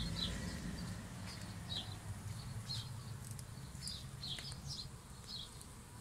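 Honey bees buzzing around a clustered swarm, a low hum that grows fainter over the first few seconds, with birds chirping in short high calls throughout.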